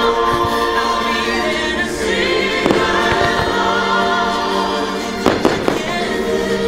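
Fireworks show soundtrack of orchestral music with a choir singing over loudspeakers, with fireworks going off. There is one bang a little under three seconds in and two close together about five seconds in.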